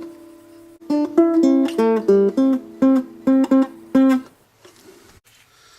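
Acoustic guitar music: a held chord, then a quick run of plucked single notes that stops about four seconds in.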